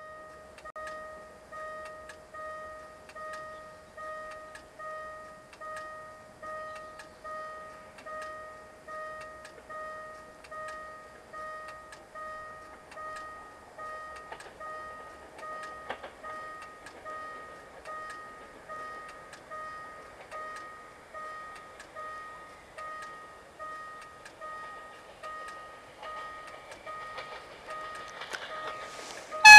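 Level crossing warning bell ringing steadily, about one and a half rings a second, as a passenger train approaches, its rumble rising near the end. Right at the end a short, loud blast of the locomotive's horn.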